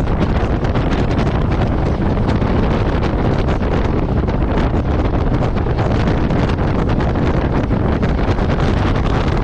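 Steady wind buffeting on a GoPro microphone while riding a Royal Enfield Meteor 350, its 349 cc single-cylinder engine running underneath.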